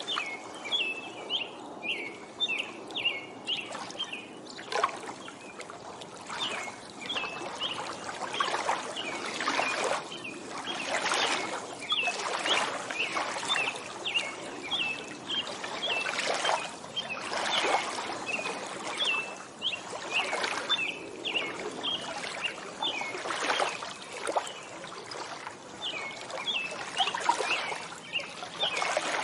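Lake water lapping and splashing gently at the shore, swelling and easing irregularly. A songbird repeats a short chirp in quick runs of about three a second, several times over.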